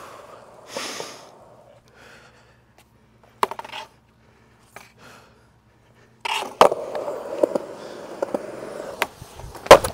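Skateboard wheels rolling on concrete, dying away in the first second. A single clack of the board comes about three and a half seconds in. Another clack about six and a half seconds in is followed by the wheels rolling again, and a loud clatter of board impacts comes near the end.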